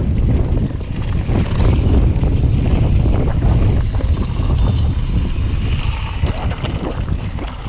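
Wind buffeting the action camera's microphone as a mountain bike rolls along a dirt trail, with a steady low rumble from the tyres on the ground and scattered clicks and rattles from the bike.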